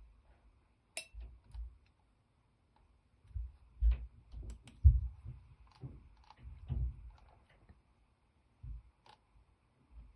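Scattered clicks from a computer mouse, with dull low knocks among them. The loudest knock comes about five seconds in.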